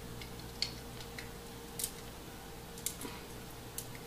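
Plastic Lego bricks clicking together as they are handled and pressed on by hand: about six faint, irregular clicks.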